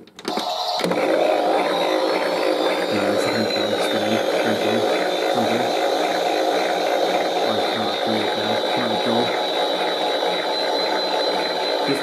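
Zanussi Auto toy washing machine running a spin. It starts suddenly, a motor whine rises over the first few seconds and then holds steady, and a quick, even low pulsing runs underneath.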